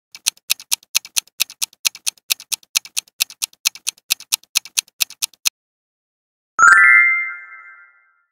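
Clock-ticking countdown sound effect, about four ticks a second alternating louder and softer, which stops about five and a half seconds in. About a second later a single bright chime rings out and fades, marking the answer reveal.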